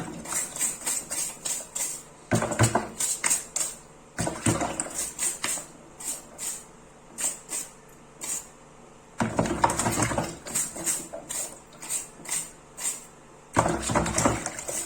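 A small brush scrubbing a plastic washing-machine lint filter, with quick repeated strokes and light plastic clicks and clatter, in several runs with short pauses between them.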